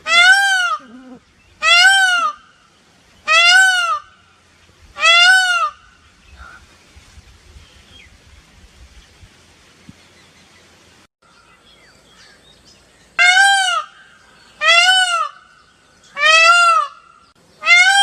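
Indian peafowl calling: a series of loud, wailing calls, each one rising and then falling in pitch. Four come about a second and a half apart, then after a pause of about seven seconds four more follow at the same pace.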